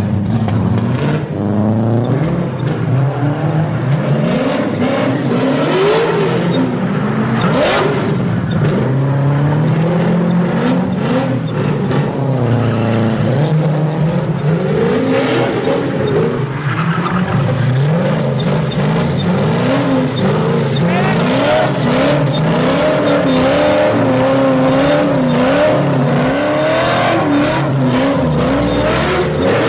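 V8-swapped drift car's engine held at high revs, the pitch rising and falling constantly as the car drifts in circles, with tyre squeal and skidding noise throughout.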